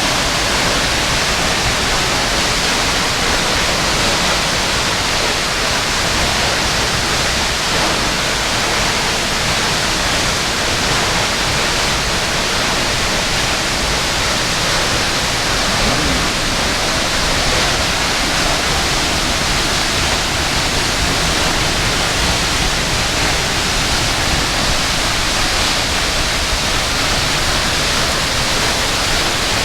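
A waterfall's steady rush of falling water, an even, unchanging noise.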